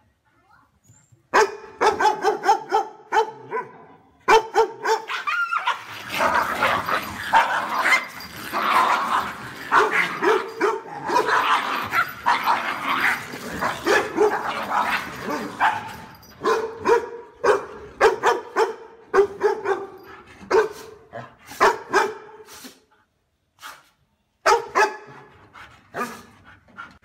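Dogs barking in rapid runs of sharp, loud barks. About six seconds in, the sound turns into a denser, noisier tangle of dog noise for some ten seconds as two dogs fight, then the quick barking picks up again.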